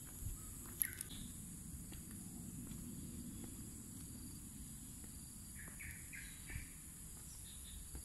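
Birds chirping over a steady high-pitched insect drone: a couple of short calls about a second in, and a quick run of four notes about six seconds in.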